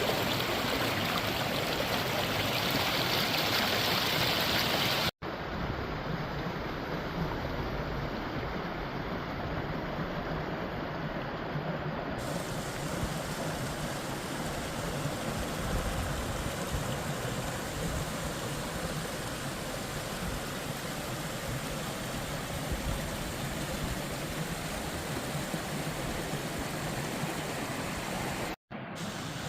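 Forest stream flowing over rocks: a steady rush of water. It cuts out for an instant about five seconds in and again near the end, changing a little in tone after each break.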